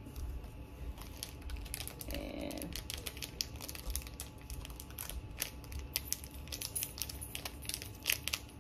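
Small plastic packaging bag crinkling as it is handled and opened by hand: a quick, uneven run of small crackles and clicks.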